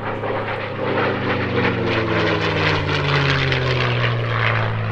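P-51D Mustang's Merlin V-12 engine and propeller on a low display pass, growing louder over the first second, then the engine note falling steadily in pitch as the fighter goes past.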